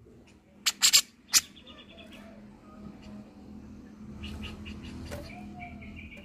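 Grey-cheeked bulbul (cucak jenggot) giving harsh, chattering calls: three loud sharp bursts about a second in, then quieter rapid chatter, more rasping notes around the middle, and a fast pulsed chatter near the end.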